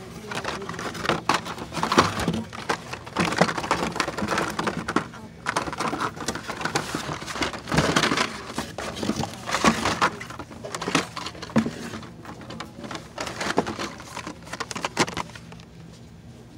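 Hot Wheels blister-pack cards being shuffled and flipped through in a cardboard display box: irregular crackling of plastic blisters and card stock with sharp clacks, easing off near the end.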